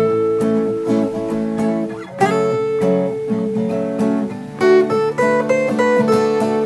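Acoustic guitar playing chords in the key of A, strummed with the notes left ringing. A fresh chord comes in about two seconds in, and another just before the five-second mark.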